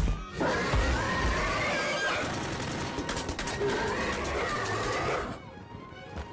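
A monstrous creature's screeching roar, a film sound effect, drawn out in several rising and falling screeches over music, then dropping away about five seconds in.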